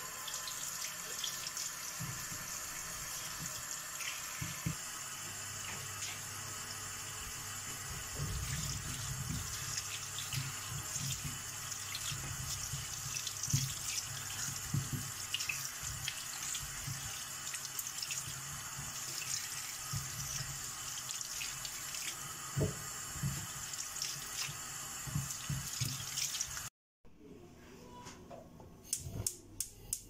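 Kitchen faucet running into the sink as plums are rinsed by hand under the stream, with small knocks of fruit and hands in the water. The water sound stops abruptly near the end, followed by a short run of sharp clicks.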